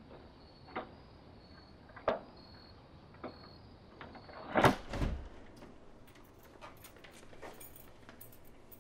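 Front door being handled and opened: three sharp clicks, then a loud clunk with a rattle about four and a half seconds in, followed by faint taps. Crickets chirp faintly in the first half.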